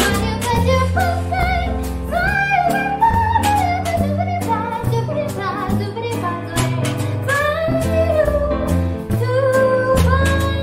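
Female voice scatting wordless melodic lines with vibrato over a swinging jazz trio of upright bass, piano and drums, the cymbals ticking steadily under the walking bass.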